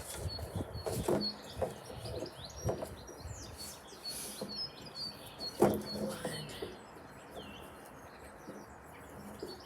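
Small birds chirping repeatedly in the background, with knocks and rustles of string and sticks being handled as a knot is tied. The sharpest knock comes just under six seconds in.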